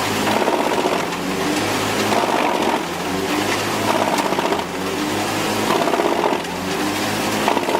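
Large industrial wood chipper running, a steady engine drone with a fast mechanical rattle, its level swelling and dipping about every two seconds.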